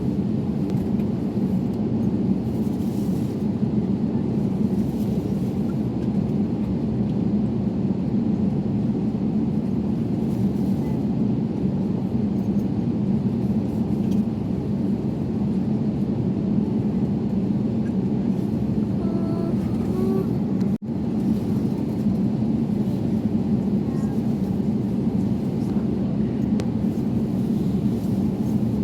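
A steady, unchanging low vehicle rumble, cutting out for an instant about three quarters of the way through.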